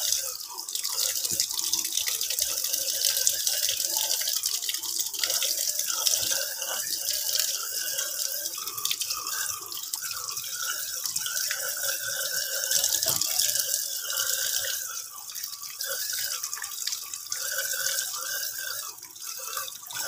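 Tap water running steadily into a stainless steel kitchen sink, splashing over whole fish being rinsed and handled by hand.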